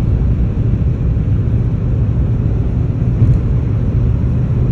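Steady low rumble of tyre, road and engine noise heard inside a car's cabin at highway speed in a road tunnel, with one slight bump about three seconds in.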